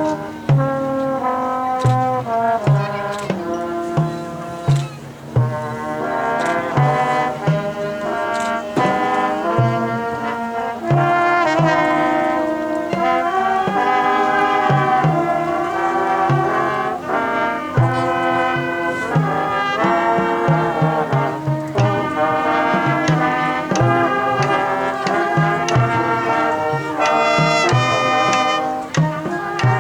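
Marching band playing its competition field show: the brass section sustains and moves through chords over a steady beat from the drums.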